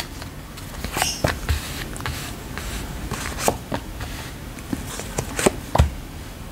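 Round oracle cards being handled and laid down one by one on a velvet cloth: scattered light taps and card slides.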